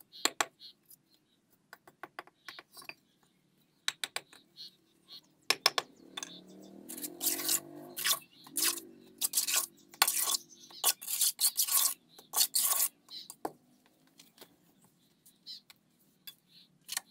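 A brick hammer tapping bricks into place on wet mortar with sharp clicks. From about five seconds in, a steel trowel scrapes mortar out of a metal pan and spreads it along the course in a run of louder metallic scrapes, with softer scraping near the end.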